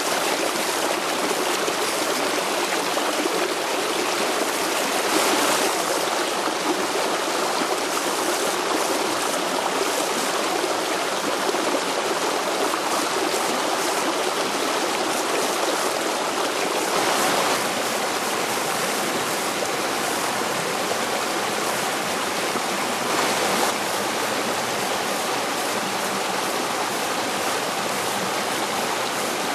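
Shallow rocky stream rushing over boulders and small cascades: a steady, even rush of water with a few brief louder gushes.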